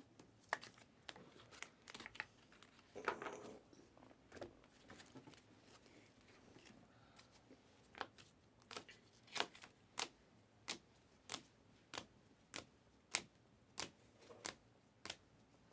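Trading cards and pack wrappers being handled: faint rustling with a brief tearing crinkle a few seconds in, then a steady run of sharp clicks, about two a second, through the second half.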